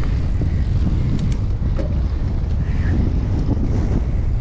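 Wind buffeting the camera microphone on a mountain bike going down a dirt trail, over a dense low rumble from the tyres, with a few sharp clicks and rattles from the bike.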